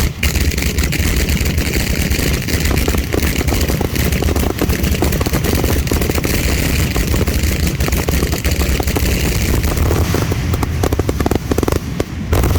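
Fireworks going off in a rapid, unbroken barrage: many bangs and crackles a second, with a brief dip about twelve seconds in.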